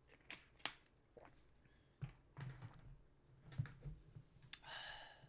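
Near-quiet room tone with a few faint, sharp clicks and taps scattered through it, and a short hiss near the end.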